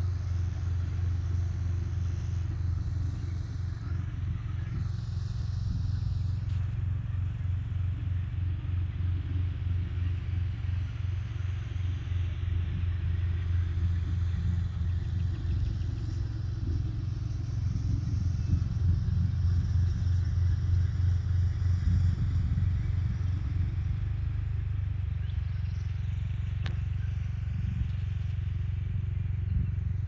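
An engine idling steadily: a low, even hum with a fine, regular pulse, and one faint click near the end.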